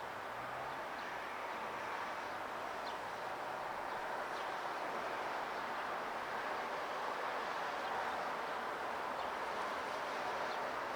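Steady outdoor background noise with a few faint, short high chirps. No bell strikes are heard.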